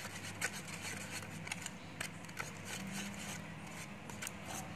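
Wooden ice-cream stick stirring slime mix and magnetic powder in a paper cup, scraping and tapping against the cup's sides in quick, irregular clicks.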